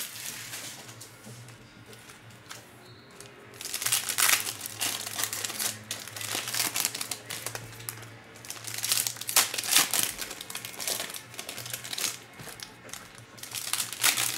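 Foil wrappers of Panini Donruss Optic trading-card packs crinkling as the packs are handled and torn open by hand. The crinkling is quiet for the first few seconds, then comes in repeated bursts.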